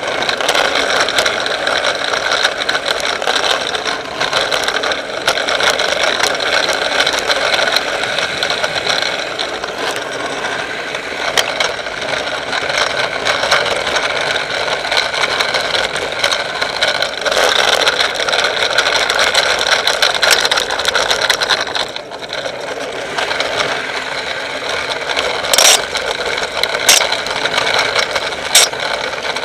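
Steady vehicle running noise with road rumble and rattles on a descent, with a few sharp clicks or knocks in the last few seconds.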